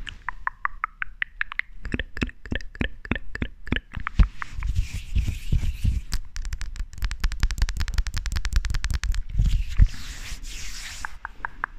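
Close-miked ASMR hand and finger sounds: rapid crisp clicks and taps of fingers and lips right at the microphone, with soft swishes of hands rubbing together around five and ten seconds in.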